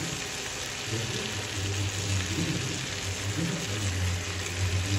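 Prawns sizzling steadily as they fry in oil in a nonstick pan, with a low hum that comes and goes underneath.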